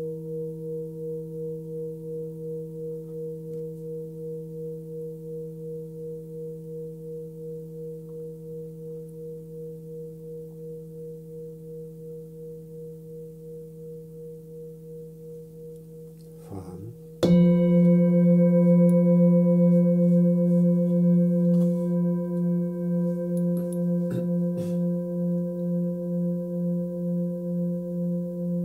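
Hand-forged singing bowl ringing and slowly fading, its tone pulsing with a steady wah-wah beat. About seventeen seconds in, a slightly higher-pitched bowl is struck and rings out louder with several overtones, pulsing as it sustains.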